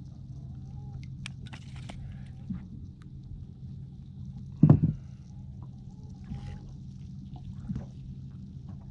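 Steady low hum on a fishing boat, with water sloshing against the hull and faint clicks, and one loud thump about halfway through.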